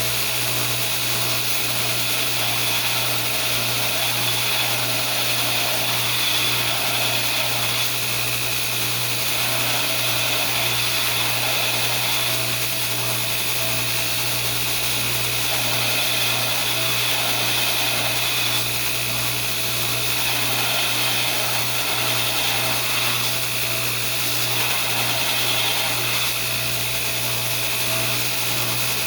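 Belt grinder running steadily with a low motor hum, its abrasive belt hissing against the edge of a hardened steel flint striker being ground flat.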